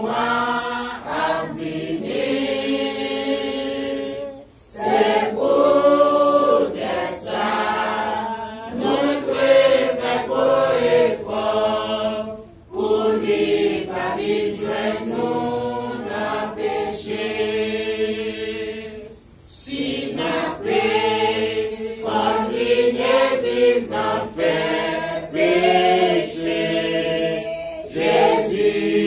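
A congregation singing a hymn together from hymnbooks, many voices on long held notes, with three brief breaks between lines.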